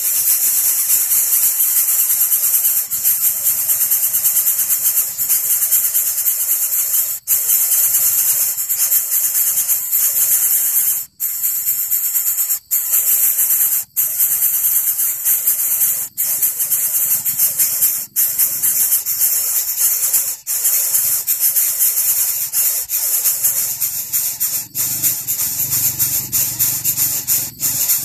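Coucal nestlings giving loud, steady, high-pitched hissing begging calls, broken by brief pauses.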